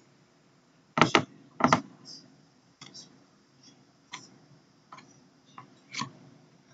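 Irregular sharp clicks and knocks. Two loud ones come about a second in and just under two seconds in, with fainter ticks spaced out after them.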